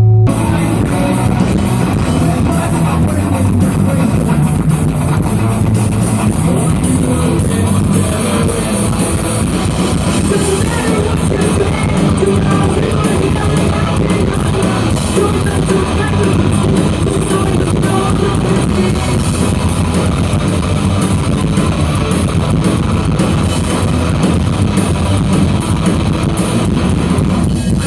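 Live rock band playing loudly and without a break, with guitar and drum kit.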